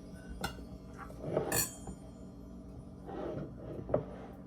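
A few light clinks and knocks of kitchenware being handled, the sharpest about a second and a half in and another near the end.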